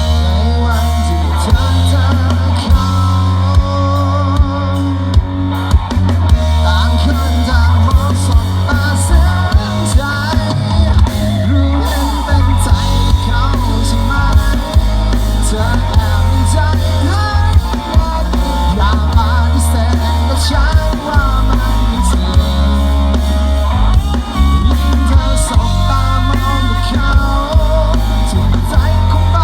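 Live rock band playing a song at a sound check: drum kit, bass guitar, electric guitar and keyboard, with a singer's voice over them.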